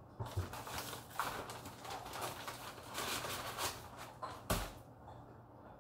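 Irregular crinkling of a paper snack bag and crackling of dry multi-grain crisps being handled and dropped into a blender jar, with one sharper knock about four and a half seconds in.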